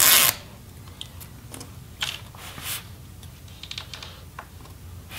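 Adhesive tape peeled off a laptop battery with a short rasp at the start, followed by scattered light clicks and taps of handling on the open laptop's plastic chassis.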